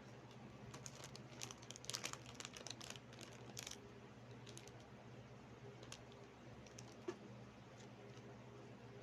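Close-miked eating and handling of a muffin: a burst of soft crinkling and clicking from about one to four seconds in, then a few scattered clicks, over a faint low hum.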